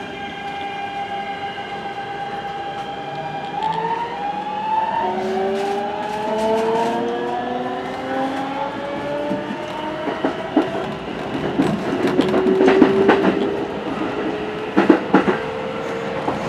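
Keikyu New 1000 series train's Siemens GTO "doremifa" VVVF inverter singing as the train pulls away: it holds a steady tone, steps up in pitch about four seconds in, then glides upward as the train gathers speed. Wheels click over rail joints from about ten seconds on.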